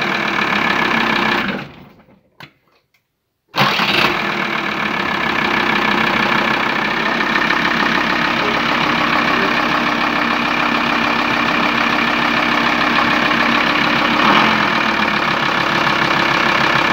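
VW T4 van engine idling steadily, running normally now that the starter fault is fixed. The sound cuts out for about two seconds near the start, then the steady idle returns.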